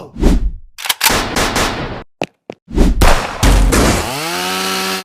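Mouth-made sound effects: a run of harsh, noisy bursts imitating chainsaw or gunfire, broken by short gaps, then a voiced tone that rises and holds steady near the end.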